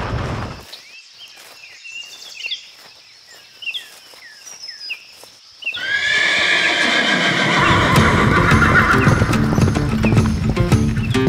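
A car's noise cuts off in the first second, leaving a quiet stretch of birds chirping and soft hoof knocks. About six seconds in, a horse whinnies loudly, and music with a low beat comes in and carries on.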